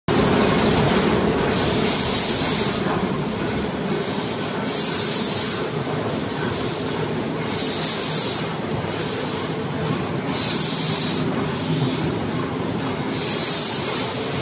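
PLA lid thermoforming machine running: a steady mechanical hum, with a hiss of air just under a second long about every three seconds as it cycles.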